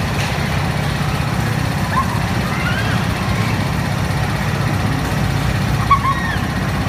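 Amusement ride's machinery running with a steady low drone, with a few brief high squeaks scattered through and a short sharp sound about six seconds in.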